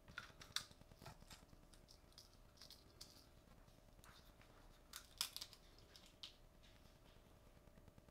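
Faint crisp crackles and clicks of dried red chili peppers being broken up and dropped into a cast iron skillet of raw shrimp, with two sharper clicks about half a second in and about five seconds in.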